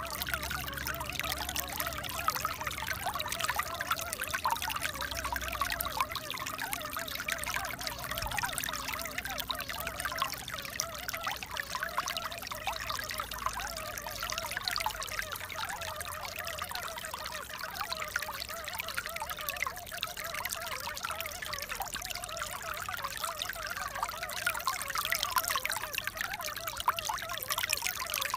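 Steady trickling, pouring water.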